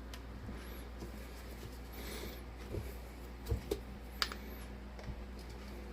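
A few small, light clicks and taps: handling of the snow globe's base while the music box's winding key is fitted back in. They come between about two and a half and four and a half seconds in, over a low steady hum.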